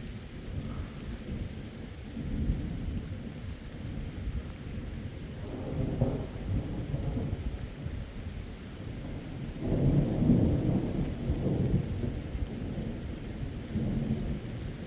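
Thunder rolling repeatedly over steady rain, each roll a low rumble that swells and fades. The loudest roll comes about two-thirds of the way through.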